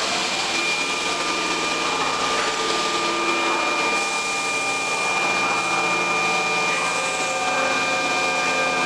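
Keihan 2600-series electric train standing at an underground platform with its equipment running: a steady hiss with a thin high whine, and a lower hum that strengthens a few seconds in.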